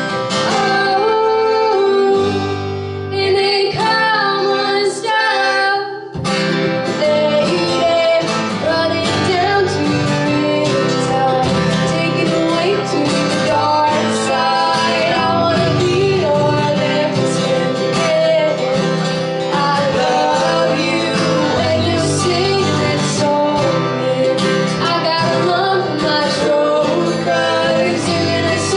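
Live acoustic band playing: a woman singing the lead over a strummed ukulele and two strummed acoustic guitars. The accompaniment is sparse at first and turns fuller and steadier about six seconds in.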